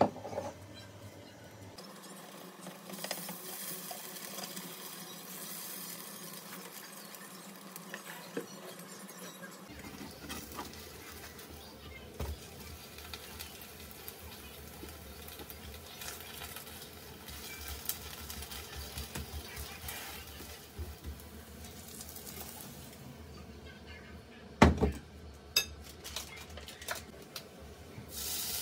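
Bacon pancake frying in a nonstick pan with a light sizzle, and a spatula scraping and tapping against the pan as the pancake is turned. A few sharp knocks near the end.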